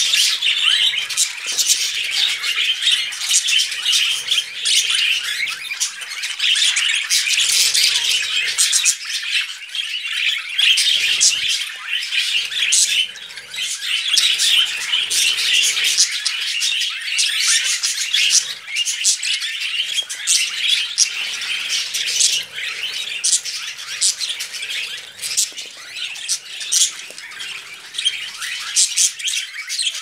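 Budgerigars chattering without a break: a dense, high-pitched warble full of quick sharp chirps and clicks.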